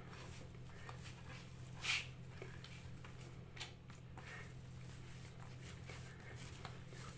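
Faint handling sounds of hands pressing and gathering a soft, buttery sablé dough in a bowl, with a few soft brief knocks, over a steady low hum.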